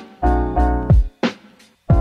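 Background music: a lofi hip-hop beat with keyboard chords over a kick drum, briefly dropping away just before the next chord comes in.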